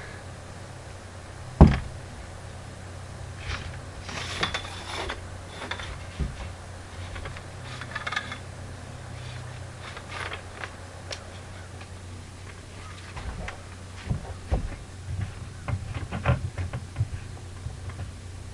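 Scattered knocks, clacks and scraping from a paint roller on a long extension pole working against a rough stucco wall, over a steady low hum. The loudest is one sharp knock about a second and a half in, and the clatter comes in clusters.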